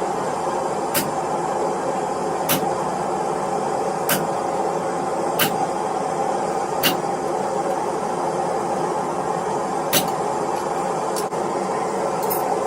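Steady roar of a blacksmith's forge, with short sharp metal strikes about every one and a half seconds and a pause between them around the middle.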